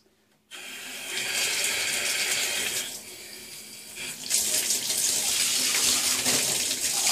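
Bathtub tap turned on about half a second in, water running steadily into the tub, coming on stronger from about four seconds in.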